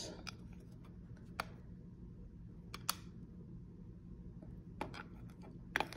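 A few faint, scattered clicks and light taps from gold-coloured metal coasters being handled and turned over in the hand, over quiet room tone.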